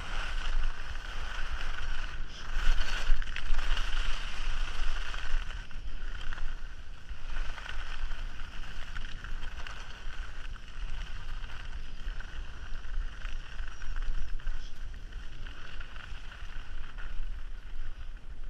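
Skis running fast over groomed snow: a steady hiss and scrape of the ski bases and edges on the piste, with wind buffeting the camera microphone as a low rumble that swells and fades.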